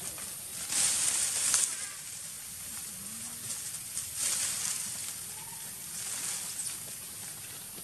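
Rustling in dry leaf litter, in two loud bursts, about a second in and again about four seconds in, over a steady hiss.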